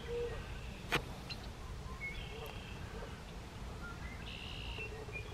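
Outdoor wildlife ambience: scattered short songbird chirps over a steady low rumble, with one sharp click about a second in.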